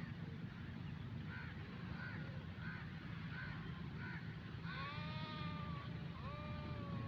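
Sheep bleating twice in the second half, drawn-out wavering calls, over a steady low rumble; before them comes a row of short high chirps, about one and a half a second.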